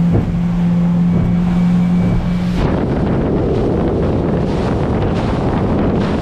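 Small boat's outboard motor running with a steady hum; about two and a half seconds in, loud wind on the microphone and rushing water take over and cover it.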